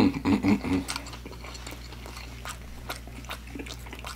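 A person chewing a mouthful of fried chicken nugget, with soft wet mouth clicks scattered throughout. A short hummed voice sound comes in the first second.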